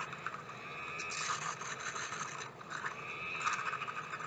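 Small motor of a toy mini washing machine whirring as it spins a makeup brush in its basket, dipping briefly about midway.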